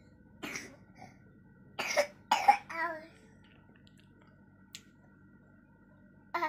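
A child coughing with a cold: one short cough about half a second in, then two harder coughs close together around two seconds in, the second the loudest.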